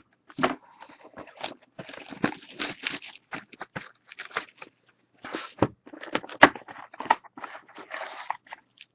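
Crinkling, rustling and crackling of trading-card packaging (wrappers and box cardboard) being handled and torn open, in irregular bursts with sharp clicks and taps.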